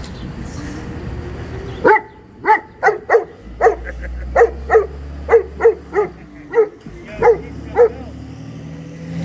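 A dog barking about a dozen times in quick succession, starting about two seconds in, with a steady hum of background noise underneath.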